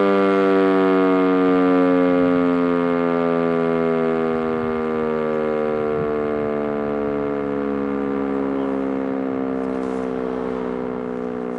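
Electromechanical E57 fire siren winding down after its fire alarm signal. Its single steady howl sinks slowly in pitch and fades gradually as the rotor coasts to a stop.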